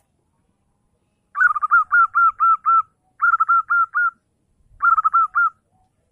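Zebra dove (perkutut) cooing: three quick phrases of rapid, rolling notes, the first about seven notes long and the next two shorter, with short pauses between.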